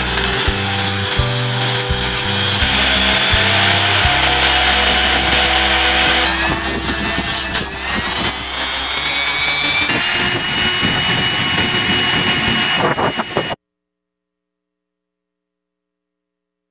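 Mini grinder's sanding disc grinding against a spinning cardboard pulley: a gritty rasp over a steady motor whine, with background music. All sound cuts off abruptly near the end.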